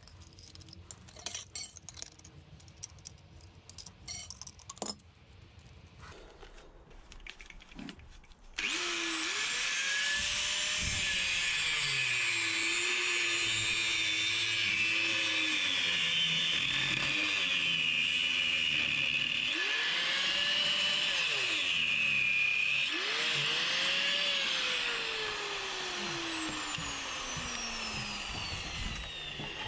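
Mains angle grinder with an abrasive cut-off disc cutting into the hardened shackle of a Litelok X1 lock, preceded by a few small clicks as the disc is fitted. The grinder starts about a third of the way in and runs loud and steady, its motor pitch sagging and recovering several times under the load of the cut. Near the end it winds down.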